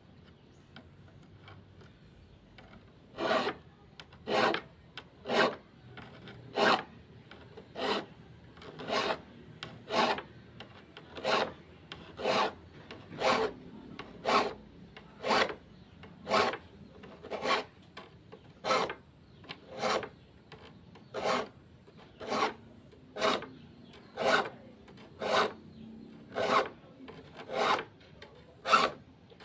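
A hand file rasping across the teeth of a handsaw to sharpen it, in short single strokes about once a second, starting about three seconds in.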